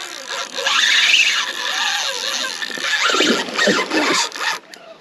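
Spinning reel's drag squealing as a hooked chinook salmon runs and pulls line off against it, wavering in pitch, and stopping near the end.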